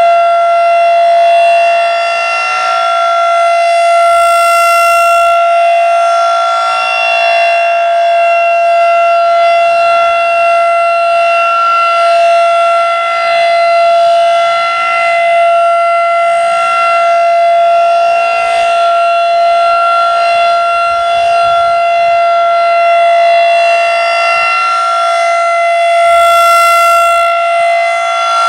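Federal Signal 2001-DC rotating outdoor warning siren sounding its steady Alert tone in a monthly test. The pitch holds steady while the loudness slowly swells and fades as the siren head turns.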